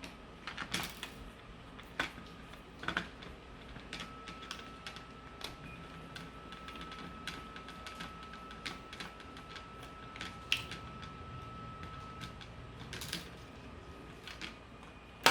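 Scattered light clicks and taps of small plastic parts being handled and pulled apart, with a faint steady high tone through the middle and one sharper click at the end.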